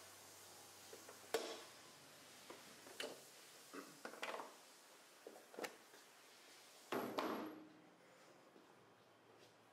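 A Mitsubishi Lancer's hood being unlatched, lifted and propped open: a string of sharp metal clicks and clunks roughly a second apart, the loudest a double clunk about three quarters of the way through.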